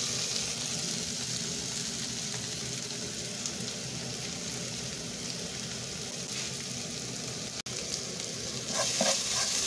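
Chopped tomatoes and onions sizzling steadily in oil in a non-stick frying pan, with a brief dropout about three-quarters of the way through. A wooden spoon starts scraping and stirring the pan near the end.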